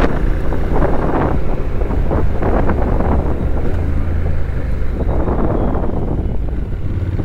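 Motorcycle engine running steadily at road speed, its note shifting slightly a few seconds in, with wind buffeting the rider's microphone.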